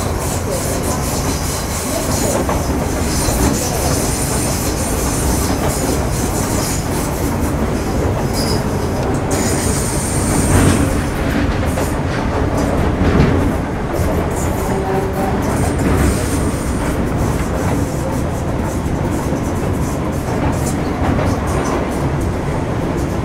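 Running noise of an MTR Metro Cammell M-Train (C167, CM-Stock) carriage under way: steady rumble of wheels on rail with clattering over the track. A brief high-pitched tone comes through about ten seconds in and again a few seconds later.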